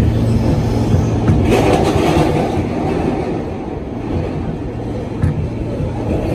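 New York subway R160A car running through a tunnel, heard from inside the car: a steady rumble of wheels on rail over a low motor hum. A louder rush of track noise comes about a second and a half in, and a single sharp click about five seconds in.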